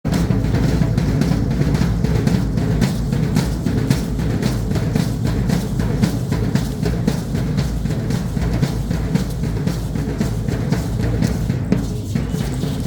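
Drumming for a Mexican traditional danza: a deep drum beaten in a fast, steady rhythm of about three to four strokes a second, with a constant low boom under it.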